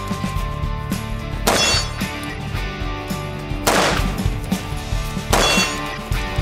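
Music track with a steady beat and three sharp ringing metallic crashes, about two seconds apart.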